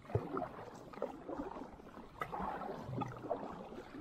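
Double-bladed kayak paddle stroking through calm water, the blades dipping in and pulling back with soft splashing and trickling, several strokes in a row.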